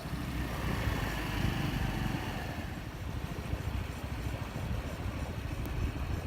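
A motor vehicle's engine running, a steady low rumble with rapid pulsing.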